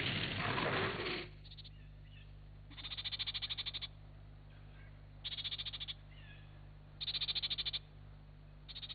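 A loud hissing noise cuts off about a second in, giving way to a jungle ambience sound effect: a frog's rapid pulsing trill repeats four times, about every two seconds, with faint chirps between.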